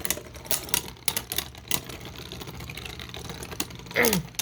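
Beyblade spinning tops clashing in a plastic stadium: a rapid run of sharp clicks and rattles in the first couple of seconds, then sparser clicks over a steady spinning hum.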